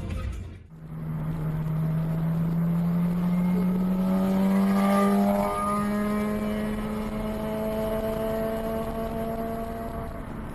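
A motor vehicle engine running and accelerating, its pitch climbing slowly and steadily, with a brief hitch about five and a half seconds in before it holds level.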